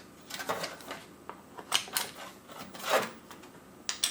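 Small plastic keycaps being handled and sorted, clicking against each other and the work surface with light rustling, in irregular sharp clicks several times over.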